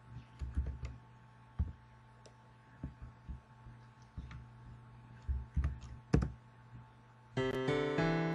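Irregular knocks and clicks from typing and clicking on a laptop, over a steady low hum. About seven seconds in, a piano tune starts playing from a browser demo page that plays each note as a separate HTML5 audio file.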